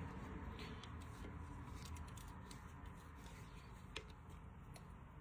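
Faint, scattered small metallic clicks and handling noise from bolts being tightened on a dirt bike's chain guide, with one sharper click about four seconds in.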